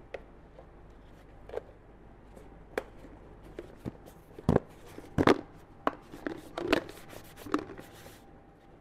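Hard polypropylene camp bowls of a Wildo Camp-A-Box knocking and clicking together as the lid-bowl is fitted onto the base. Scattered light clicks, with the loudest knocks a little past halfway.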